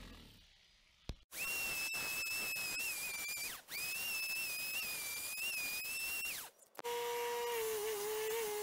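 A small power tool running at a steady high-pitched whine in two stretches of about two and a half seconds, each cut off abruptly, then running at a much lower pitch near the end.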